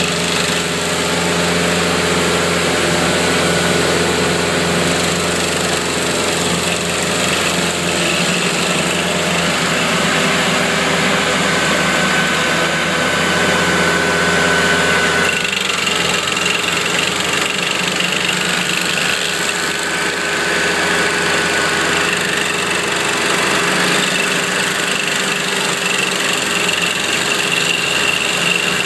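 Morbark G42SP stump grinder running steadily under engine power. A high whine over the engine dips and shifts in pitch about halfway through.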